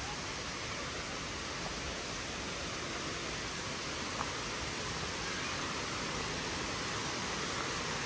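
Steady, even rushing of a small stepped waterfall.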